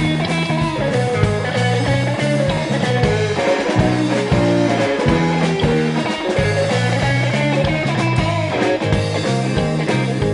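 Instrumental break of a rock'n'roll song by a guitar, bass and drums trio: guitar leading over a driving bass line and a steady drum beat.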